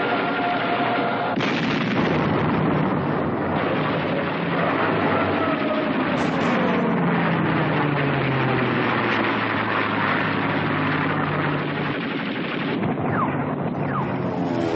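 Sound of an air attack on a warship: gunfire and explosions over the drone of aircraft engines. Between about four and nine seconds in, one engine's note falls slowly in pitch as a plane passes or dives, and new engine glides come in near the end.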